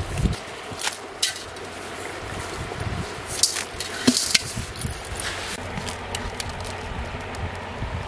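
Scattered wet slaps, rustles and knocks as an eel-like fish is grabbed off the sand and dropped into a pot, with a few sharper clicks near the middle, over a steady outdoor wind-and-water background.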